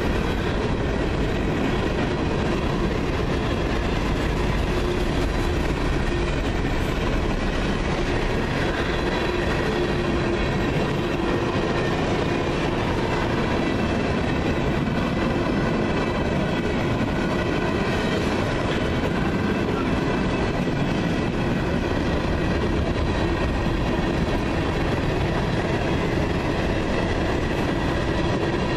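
Freight cars of a CSX manifest train (boxcars, flatcars, gondolas, tank cars and covered hoppers) rolling past, with steady, unbroken wheel-on-rail noise.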